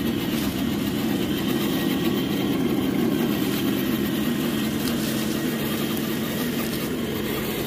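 Scale RC crawler's electric motor and gear drivetrain running steadily as it drives.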